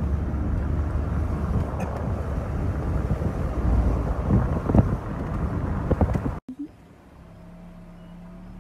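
Low, steady rumble of a moving vehicle with wind buffeting the microphone, with a few knocks. It cuts off suddenly about six and a half seconds in, leaving a faint steady hum.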